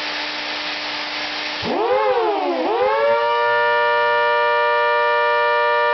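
Homemade quarter-scale model of an ACA Hurricane siren, blown by an old Electrolux vacuum cleaner and driven by a chopper motor on 24 volts. At first only the vacuum's steady rush of air is heard. About two seconds in, the chopper starts and the siren winds up. Its pitch dips once, then rises again to a steady wail in a chord of several tones, described as sounding like a hurricane.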